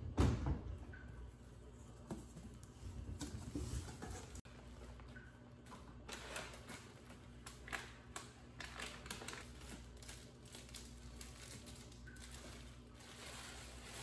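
Plastic packaging and a foil snack bag rustling and crinkling in short bursts as items are lifted out of a cardboard parcel box, with a dull thump at the very start.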